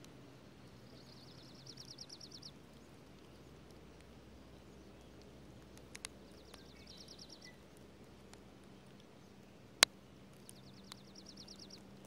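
A dark-eyed junco's song, a fast, high, even trill of repeated notes, sung three times. A few sharp ticks of raindrops hitting, the loudest about ten seconds in.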